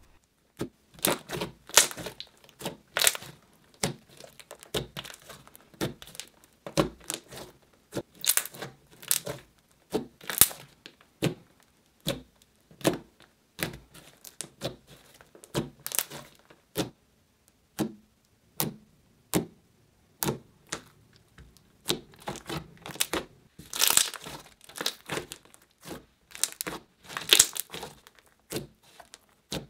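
Thick, glossy slime being squished, poked and stretched by hand, giving a string of irregular sharp clicks and crackling pops, with denser clusters of crackling toward the end.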